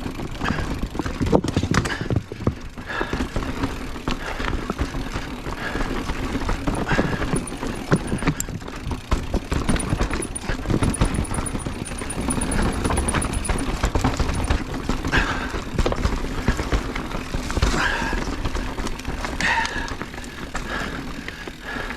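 Mountain bike clattering down a rocky trail: tyres, frame and drivetrain knocking over rocks in a constant stream of irregular impacts.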